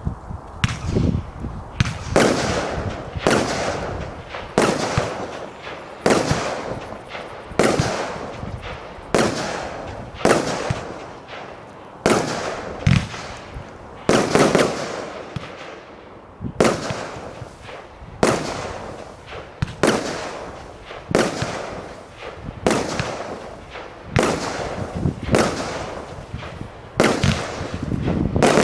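Dynamic Fireworks "Sparticus" consumer fireworks cake firing shot after shot. There is a loud bang roughly every one to one and a half seconds, each trailing off before the next.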